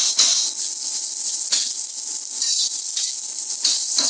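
Sliced shallots sizzling in hot oil in an induction wok, a steady high hiss broken by a few irregular clattering strokes of stirring, with a faint steady tone underneath.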